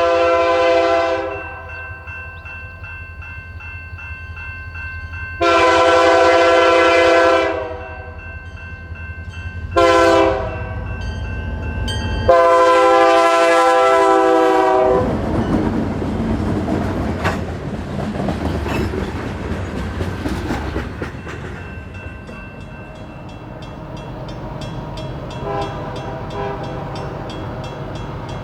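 Nathan Airchime K3L three-chime locomotive air horn sounding the grade-crossing signal: long, long, short, long. After the last blast, the train's wheels and rails clatter past. A fainter horn sounds again near the end.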